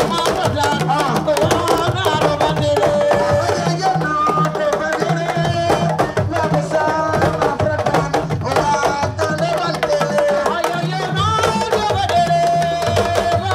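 Sabar drums playing, with a voice singing long held notes over them.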